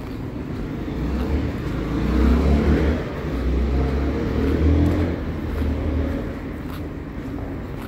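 Urban street ambience with a low rumble that swells twice and then eases off.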